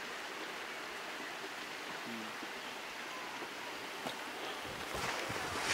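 Steady, even hiss of background noise with no distinct source, rising slightly near the end.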